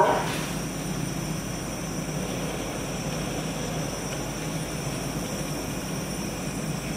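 DB double-deck regional train pulling slowly into the station, control car first: a steady low rumble and hum.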